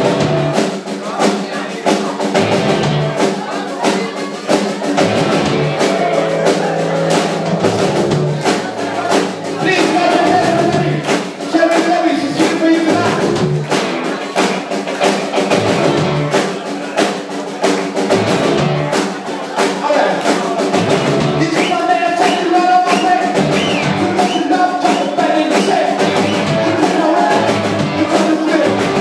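Live rock band playing: electric guitar, bass guitar and drums, loud and steady.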